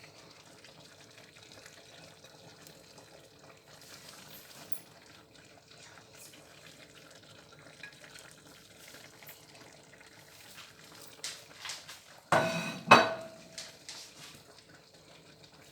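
Pot of egusi soup cooking on the stove, a faint steady hiss, with a loud clatter of metal cookware about twelve seconds in.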